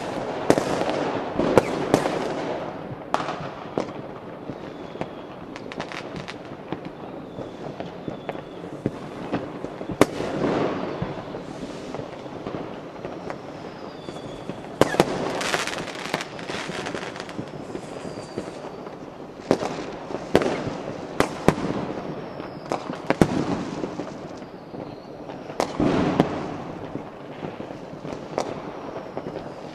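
Fireworks going off: irregular sharp bangs of bursting shells over continuous crackling, with faint short falling whistles now and then.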